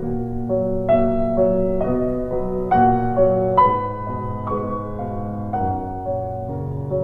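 Background piano music, slow and gentle, with a new note or chord struck about once a second.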